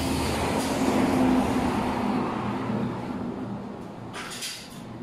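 A motor vehicle passing by: a rumbling engine and road noise that swells to a peak about a second and a half in, then fades away. A few short sharp clicks come near the end.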